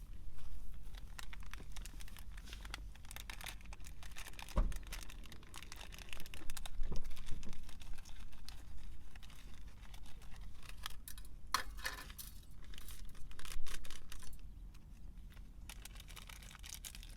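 Irregular crackling and crinkling, a run of sharp ticks and rustles with a low thump about four and a half seconds in and louder stretches about six seconds in and again near thirteen seconds.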